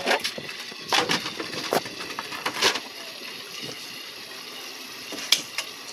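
Water splashing in three short bursts over the first three seconds as tilapia are scooped from a water tank with a dip net and bucket, then a single sharp knock near the end.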